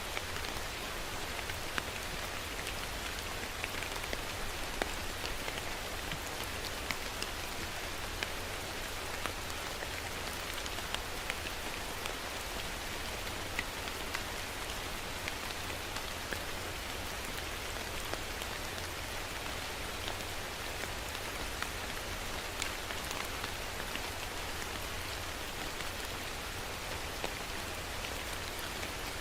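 Steady rain falling, an even hiss dotted with many separate drops ticking on a surface.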